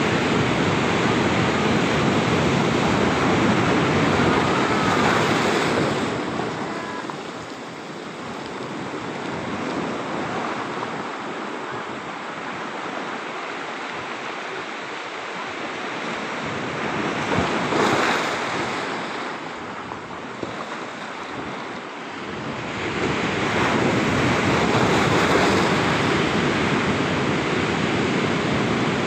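Surf breaking and washing in over a rocky beach, coming in surges. It is loud for the first several seconds, eases off through the middle with a brief swell about 18 seconds in, then is loud again for the last few seconds.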